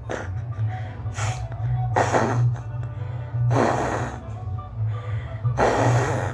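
A person taking about five sharp, noisy breaths at intervals of a second or more, the later ones louder and longer, over background music with a steady low pulse.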